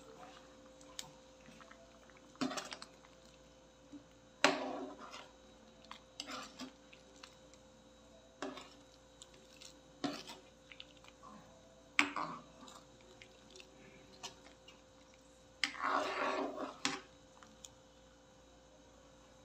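Metal ladle stirring soup in a metal pan, clinking and scraping against the pan every couple of seconds, with a longer bout of stirring and sloshing about two-thirds of the way through. A faint steady hum runs underneath.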